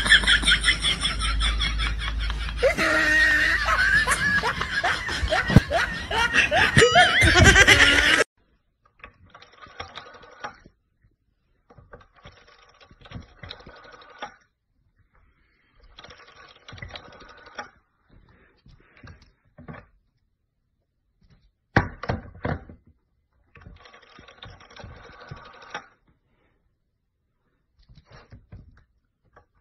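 People laughing and talking loudly for about eight seconds. After an abrupt cut, the dial of an old rotary telephone, pushed around by a dog's paw, whirs and clicks back in short bursts of a second or two, several times, with silence between.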